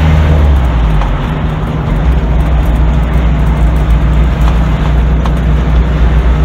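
Fiat Ducato camper van driving, heard from inside the cab: steady engine drone with road and tyre noise. The engine note drops a little about half a second in.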